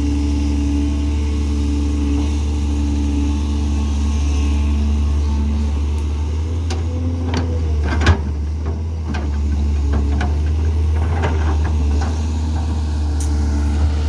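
Matador crawler excavator's diesel engine running steadily. In the middle come a string of clanks and knocks as the bucket digs into a dirt pile, the sharpest about eight seconds in.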